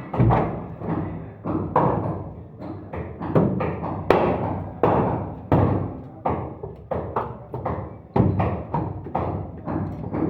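Hammer blows on wood in a steady rhythm, about two to three strikes a second, each ringing briefly.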